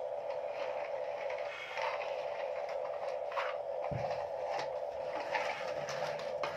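Plastic toy trucks and marbles clicking and knocking on a wooden floor, with a dull thump about four seconds in as a toy dump truck is set down, over a steady hum.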